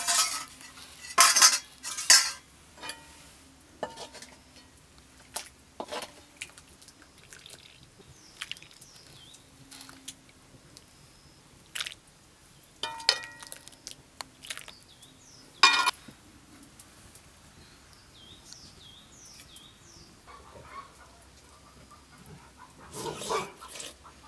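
Metal ladle and spoon clinking against a metal pot and a stainless steel bowl as soup is ladled out and served. Several sharp clinks come at irregular times, the loudest near the start and around the middle.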